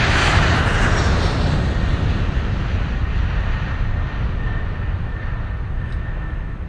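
Wind buffeting the camera microphone: a steady low rumble with a stronger gust over the first second. A faint steady high tone comes in about two-thirds of the way through.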